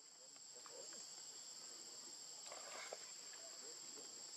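Steady, high-pitched drone of insects (crickets or cicadas) in the forest, unbroken and faint.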